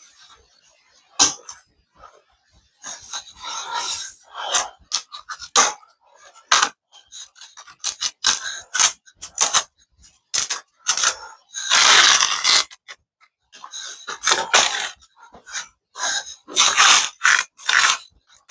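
Irregular scraping and knocking from hand work on the feeder container, in short strokes of varying length, with a longer, louder scrape about twelve seconds in.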